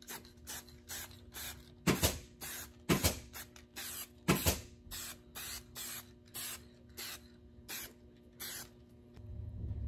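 Aerosol can of spray adhesive sprayed in many short hissing bursts, about two a second, stopping shortly before the end.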